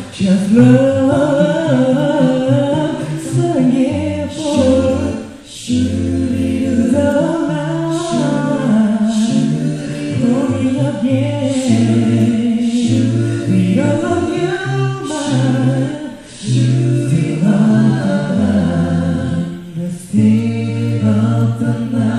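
Male vocal group singing a cappella in close harmony, with a low sung bass line underneath the lead and backing voices.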